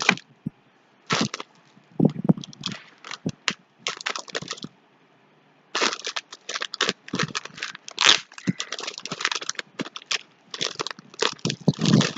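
Cardboard delivery box being torn open by hand: a string of sharp cracks, rips and crinkles of tape and cardboard, with a pause of about a second near the middle, then denser tearing.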